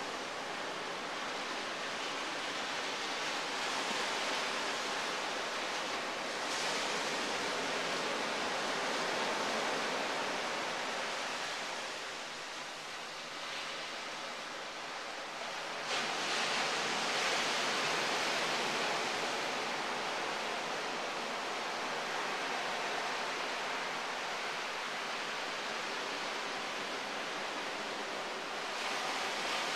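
Steady rushing noise of ocean surf breaking on a beach, stepping up suddenly about sixteen seconds in.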